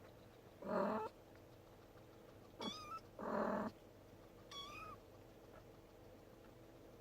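Cat meowing, four short calls: two louder, lower-pitched meows and two thin, high-pitched kitten mews.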